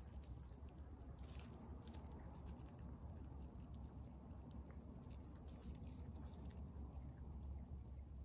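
A cat chewing and biting into raw fish, with faint small crunching clicks. A steady low rumble runs underneath.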